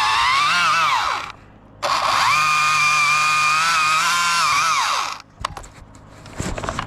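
Battery-powered chainsaw with a Panther bar whining as it cuts, in two runs. The first stops about a second in; the second is steadier and winds down after about three seconds. The saw is cutting poorly, which the climber puts down to the rakers or the Panther bar.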